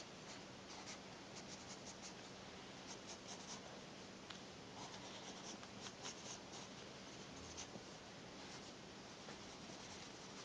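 Sanford Design Ebony graphite pencil scratching on 24 lb bond paper in runs of short, quick strokes with pauses between them. The sound is faint.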